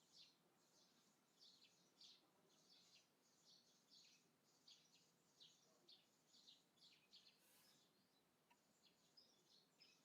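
Faint, continuous chirping of small birds, several short high calls a second with no pause.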